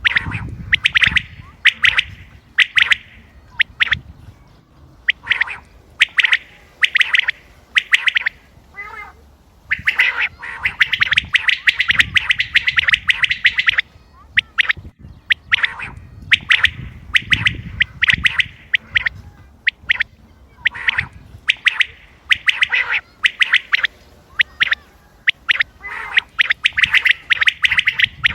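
Common quail calling over and over: clusters of short, sharp notes with brief pauses between them, and a longer, faster run of notes near the middle.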